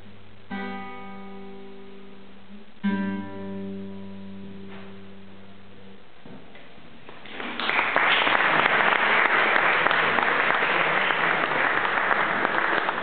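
Classical guitar playing its closing chords: two plucked chords about two seconds apart, each left to ring out. About seven seconds in, audience applause starts and carries on, louder than the guitar.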